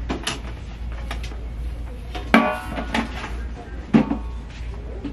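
Hard goods being handled on a store shelf: a few knocks and clanks, the two loudest about two and a half and four seconds in, the first ringing briefly. A steady low hum underneath.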